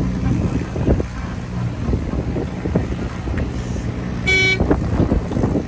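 A vehicle horn gives one short toot about four seconds in, over the steady low hum of a running engine.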